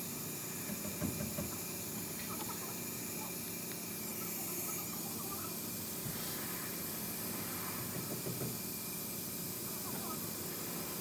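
Vehicle running with a steady, even hiss-like drone and faint steady tones, the noise being checked for a front differential fault.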